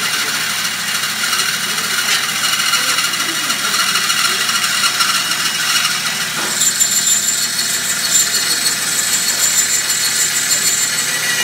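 Vertical bandsaw cutting through an aluminium frame member of a robot chassis: a steady high-pitched grinding noise of the blade in the metal, with a thin high whine joining in about halfway through.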